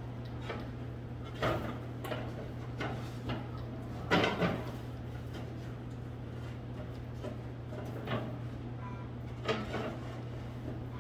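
A few scattered knocks and clunks of objects being handled, the loudest a quick double knock about four seconds in, over a steady low hum.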